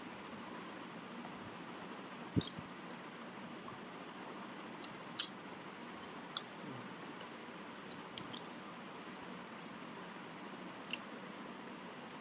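Scattered light clicks and ticks over a steady hiss, the sharpest about two and a half, five and six and a half seconds in.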